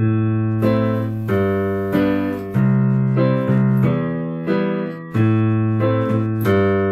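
Solo piano playing a slow phrase of notes and chords, each struck and left to ring. It is recorded through a computer's built-in microphone, with the background noise taken out by ReaFir noise subtraction.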